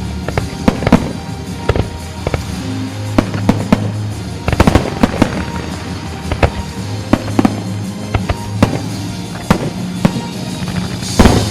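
Professional display fireworks going off in rapid succession: many sharp bursts and reports, a dense cluster a little before halfway, and a large burst with trailing crackle near the end. Music plays underneath.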